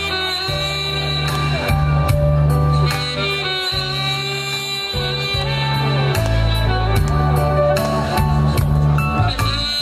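Saxophone playing a slow, sustained melody live through a PA, over backing music with a strong bass line and a steady beat.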